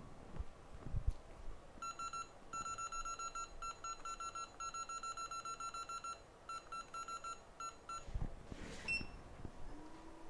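Electronic beeping from a hot air rework station: a high beep repeated rapidly in runs with short gaps, starting about two seconds in and stopping about six seconds later. A few faint knocks come before and after.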